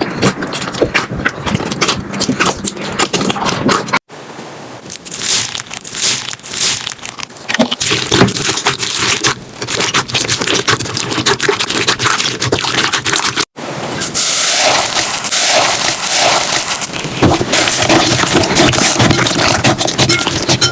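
Slime being squeezed and worked close to the microphone, a dense run of crackling and popping clicks, in three clips cut together with sudden breaks about 4 and 13.5 seconds in.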